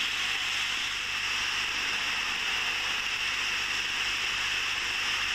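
Steady, even hiss of a waterfall's thin streams falling down a sea cliff and splashing onto the water below.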